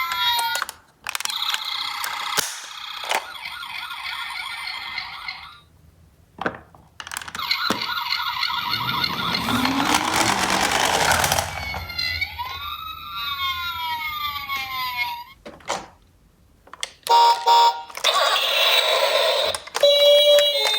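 Toy ambulances' electronic sirens sounding one after another with short pauses: gliding wail tones, steady multi-tone alarm patterns, and a noisier stretch with a rising sweep in the middle.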